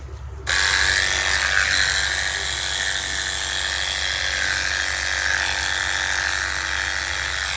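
A machine running steadily with a constant whirring hum, starting abruptly about half a second in.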